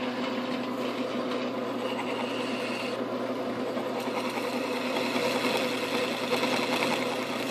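Metal lathe running at a steady speed, its chuck spinning a 3D-printed plastic pulley part while a small hand tool is held in the part's bore.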